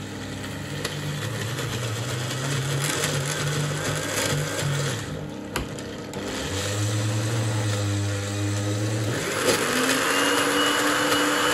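Countertop blender running, churning Oreo cookies with yogurt. The motor's pitch shifts a few times, then about nine seconds in it rises and holds at a higher speed.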